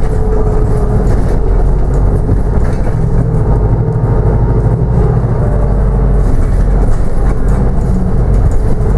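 Inside a New Routemaster diesel-electric hybrid double-decker bus under way: a steady low drone from the engine and drivetrain, mixed with road rumble.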